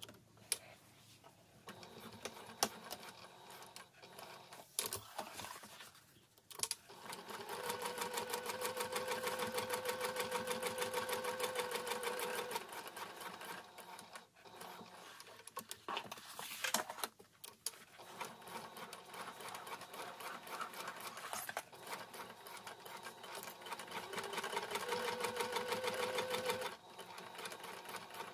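Domestic sewing machine stitching through cork fabric: a rapid, even needle clatter that stops and starts a few times, with two longer fast runs, one in the first half and one near the end.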